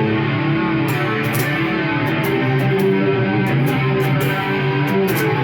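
Electric guitar played through a Marshall MG100HDFX amplifier, picking a rock riff of held notes and chords with frequent sharp pick attacks.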